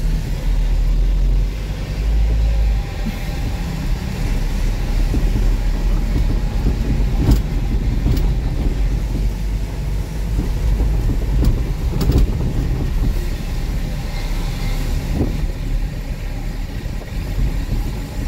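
Tow truck driving along a road: a steady engine and road rumble, with a few sharp knocks scattered through it.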